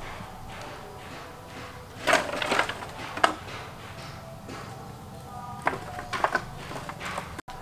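Hollow bamboo pieces clattering as an armload is dropped on the ground about two seconds in, with a single sharp knock a moment later. A few more knocks follow near the end as pieces are set down.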